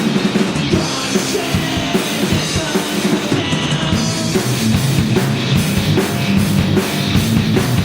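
Live rock band playing loudly, with a driving drum kit and steady bass line under the guitars; no singing.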